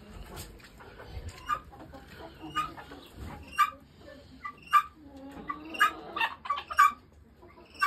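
Chickens clucking, with a string of short, sharp, loud calls coming about a second apart through the second half.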